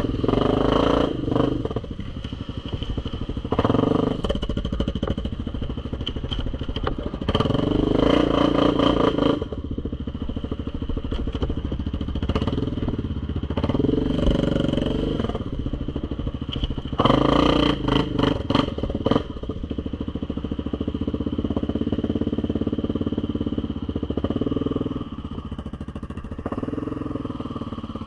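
ATV engine running under changing throttle, rising in several loud surges of revs between steadier stretches.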